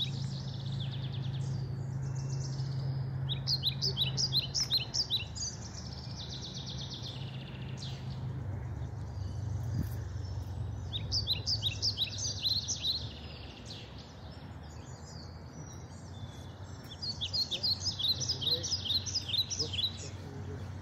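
A songbird singing: phrases of rapid, evenly repeated high notes, each about two seconds long, given several times with long pauses between. A low steady rumble runs underneath, stronger in the first half.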